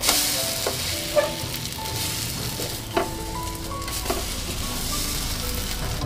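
French toast sizzling in a nonstick frying pan, a steady hiss, with a few sharp clicks of a spatula against the pan as the slices are lifted and turned; the loudest click comes about a second in.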